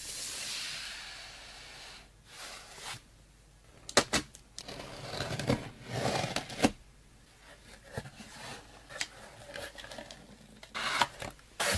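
A utility knife slicing through packing tape on a cardboard box: sharp clicks with scraping and tearing about four to seven seconds in. Then scattered small clicks, and a loud rustle of cardboard flaps and packing paper near the end. A soft hiss fades away over the first two seconds.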